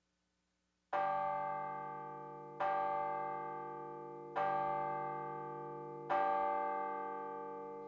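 A bell tolling four times, slow and evenly spaced about 1.7 seconds apart, each stroke ringing out and fading before the next; the first stroke comes about a second in.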